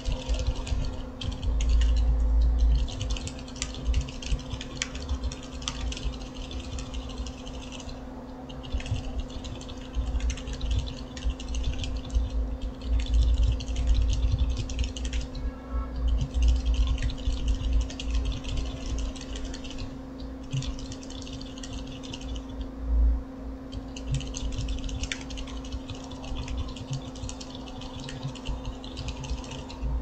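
Continuous typing on a foam-dampened 60% mechanical keyboard (Tofu60 case, FR4 plate) fitted with lubed 'Silent Chickies' silent tactile switches (Boba U4 stems and tops on Cherry MX Blue housings) and POM keycaps, with a few brief pauses. A steady low hum runs underneath.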